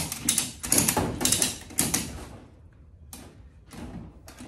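Irregular knocks and rattles of hand work with tools or materials in a workshop, quick and busy for the first half, then thinning to a few separate knocks.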